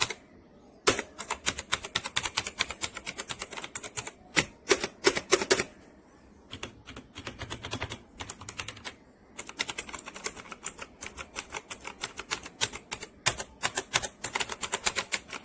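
Typing on a mechanical keyboard: fast flurries of key clicks, with short pauses about a second in, around the middle and again after about nine seconds.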